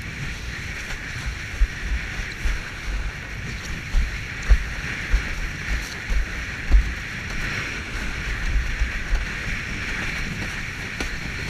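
Wind buffeting the action camera's microphone in irregular low gusts, over a steady rush of water as a windsurf board sails fast across choppy sea.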